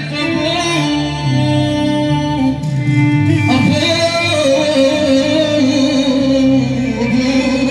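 A man singing Arabic folk song into a microphone, long held and ornamented notes, amplified over a PA with instrumental accompaniment behind him.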